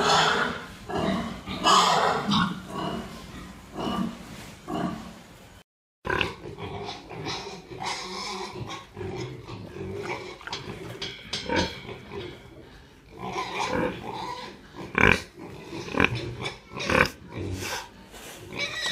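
Domestic pigs in a pen grunting on and off, with a brief drop to silence about six seconds in. Two sharp, louder sounds stand out in the second half.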